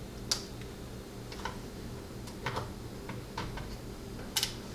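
Light, scattered clicks and taps of small metal lock parts being handled as a padlock is taken apart, about six in all, the sharpest just after the start and near the end, over a low steady hum.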